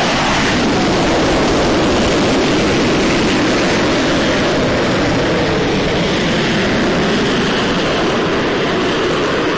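F-35B Lightning II's jet engine at full power as the fighter climbs away after a short takeoff: loud, steady jet noise that eases slightly near the end as the aircraft draws away.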